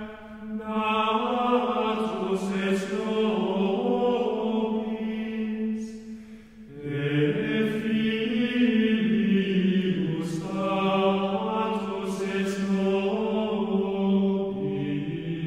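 Liturgical chant sung by a choir, in long sustained phrases that move slowly in pitch, with a short breath break about six and a half seconds in.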